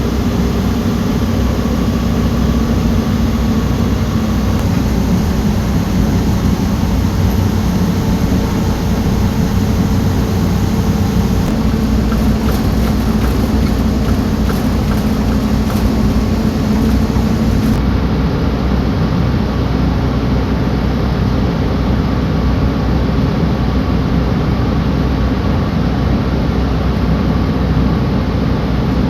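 Komatsu D68ESS crawler bulldozer's diesel engine running steadily under work, a loud continuous low drone.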